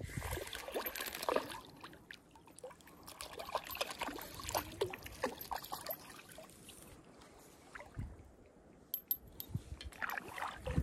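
A small hooked fish splashing at the water's surface as it is reeled in to the bank, the splashes coming in irregular bursts and dying down as it is lifted out of the water.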